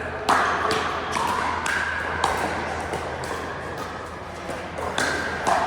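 Pickleball paddles striking the ball, sharp pops with a short ring. Four come in quick succession over the first two seconds or so, then a pause, then two more close together near the end.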